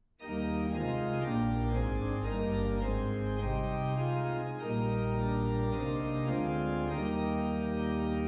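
Organ playing a slow hymn tune in sustained, held chords that change step by step, starting just as the prayer ends.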